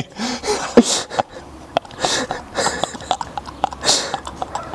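Two men laughing under their breath: short, breathy bursts of stifled laughter at irregular intervals, with a few small clicks.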